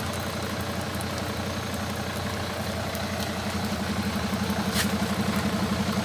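A vehicle engine running with a steady low throb, growing louder over the last couple of seconds as it comes closer.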